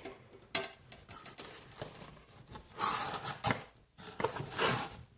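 Cardboard phone box being handled and opened: small clicks and taps, then two bursts of sliding, rustling scrapes, about three seconds in and again near the end.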